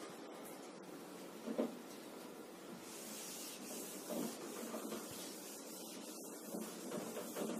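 A whiteboard duster rubbed back and forth across a whiteboard, wiping off marker writing. The rubbing starts about three seconds in, after a soft thump at about one and a half seconds.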